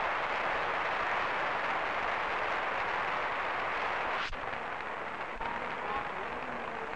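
Crowd of spectators applauding, an even patter of clapping that is loudest at first and eases off after about four seconds.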